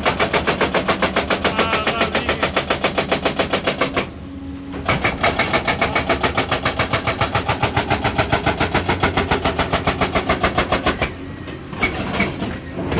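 Excavator-mounted hydraulic breaker hammering in rapid, even blows over the machine's running engine. It stops for about a second a third of the way in, then hammers again until near the end.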